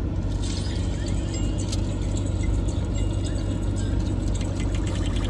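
Car air conditioning and engine running with a steady hum and blowing noise, with faint crunchy chewing of fried shrimp over it.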